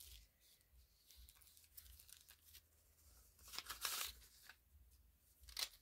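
Faint rustling and crinkling of paper banknotes being handled and slid into the plastic sleeves of a cash binder, with a louder rustle about four seconds in.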